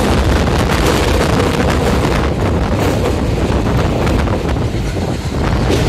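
Wind buffeting the microphone from a moving passenger train, over the low rumble and rattling clicks of the coaches running on the track.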